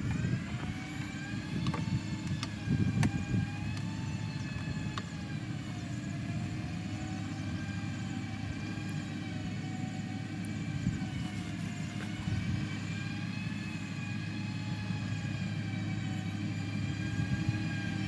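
Motor grader's diesel engine running under load as it pushes soil, a steady low drone with a whine that rises and falls slowly. A few sharp clicks come in the first few seconds.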